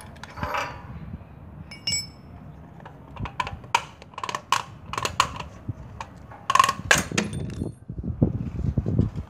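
Steel spanner clicking and clinking against the metal of a petrol generator's carburettor mounting as its nuts are worked loose. The sharp clinks are thickest in the middle, with a brief metallic ping about two seconds in and duller knocks near the end.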